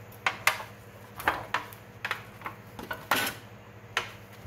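Kitchen knife scoring a boneless ham in a disposable aluminium foil tray: a series of short, sharp clicks and scrapes at irregular intervals, about nine in all, as the blade cuts into the meat and knocks against the foil.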